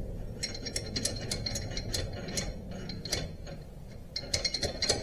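Light metallic clicks and taps of hand tools and steel parts being worked on an ATV's rear axle housing, about three a second, then a pause and a quicker run of clicks near the end.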